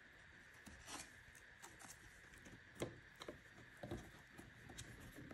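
Near silence with faint scattered rustles and light clicks as two paper-wrapped wire stems are handled and twisted together by hand.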